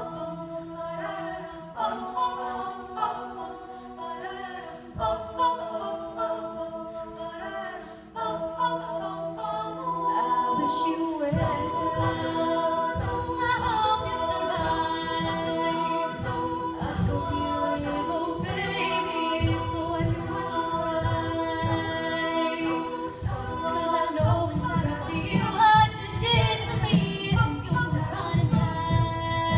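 Unaccompanied voices singing in harmony, a cappella, holding chords at first. About eleven seconds in a low bass part comes in and the singing gets louder and fuller, the bass moving quickly near the end.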